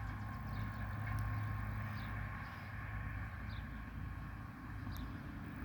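Diesel engine of a Western Star dump truck idling steadily with a low hum, with a few faint high chirps over it.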